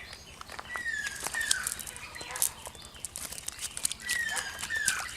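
A bird calling: a pair of short falling whistled notes, given twice about three seconds apart, over scattered light clicks and taps.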